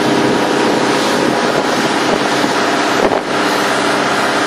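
A steady engine hum with wind blowing on the microphone, with a brief knock about three seconds in.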